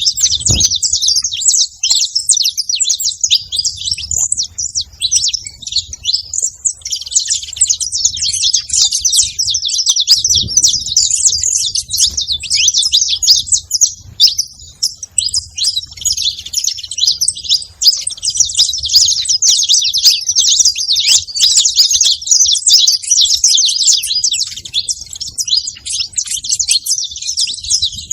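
Saffron finches chirping and calling rapidly, a dense high chatter with a brief lull about six seconds in.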